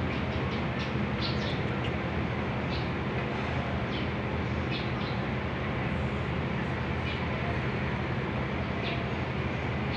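Steady low machine hum and rushing noise, with a few short high chirps scattered through it.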